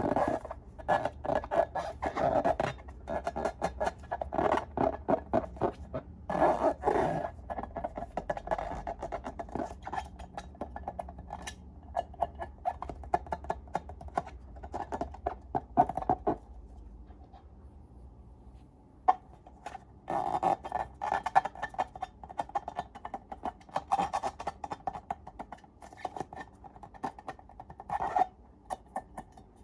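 Slime being squeezed and worked by hand: a dense run of wet, sticky clicks and pops. It pauses for a few seconds a little past halfway, then resumes.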